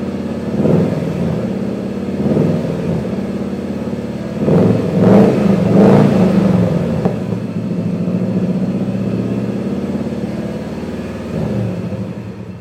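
Turbocharged 2.0 L EJ20 flat-four of a 1993 Subaru WRX GC8 through a custom 3-inch exhaust, revved in short blips, the biggest about five to six seconds in, then running steadily at a raised idle.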